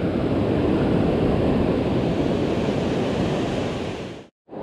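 Ocean surf washing up a sandy beach, a steady rush of breaking and receding waves with wind buffeting the microphone. The sound fades out to a moment of silence near the end, then comes back.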